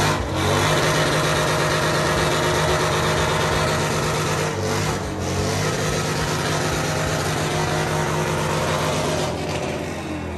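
Motorcycle engine held at high revs during a burnout, with a brief dip in revs about halfway through.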